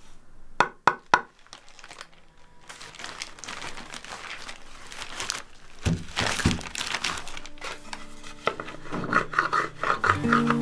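Three sharp taps in quick succession, then rustling and crinkling as something is handled, growing louder after a few seconds. Held musical tones come in near the end.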